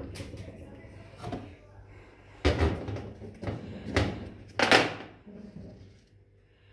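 Kitchen handling noises: a series of sharp knocks and clunks, five or six over a few seconds, the loudest a little past the middle.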